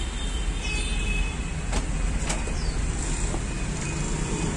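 Ford Transit's electric sliding side door motor running as the door slides open after the dashboard button is pressed, with a couple of clicks about two seconds in, over a steady low hum.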